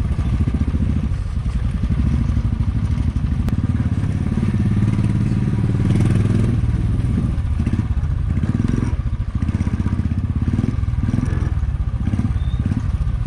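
Motorcycle engine running at low speed, heard from the rider's own bike, throbbing steadily with a slight rise around five seconds in. The tyres crunch and clatter over a rough dirt lane.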